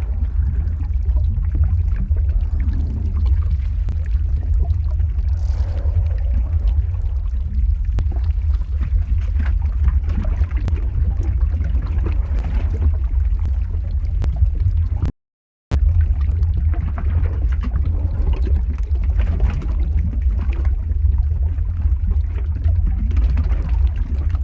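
Lava-flow ambience sound effect: a steady deep rumble with faint crackles and a liquid, gurgling character. It cuts out completely for about half a second near the middle, then resumes.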